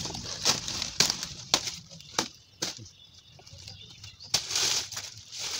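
Banana leaves rustling and crackling as they are handled and laid over a covered pile. The crackles come irregularly, with a longer rustle near the end.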